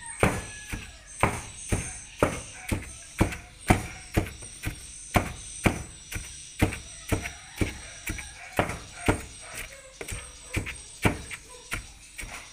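Wooden pestle pounding cassava leaves in a plastic tub standing on wooden floorboards: a steady rhythm of dull thuds, about two a second, as the leaves are mashed fine.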